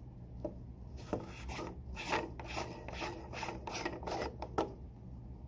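Plastic retaining nut of a TeeJet 801 flowmeter being unscrewed by hand, its threads rasping against the body's threads in a series of short strokes as it turns.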